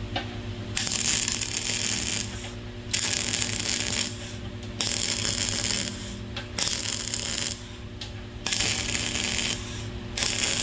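A machine running with a steady hum, with a loud hiss coming in about every two seconds and lasting about a second each time.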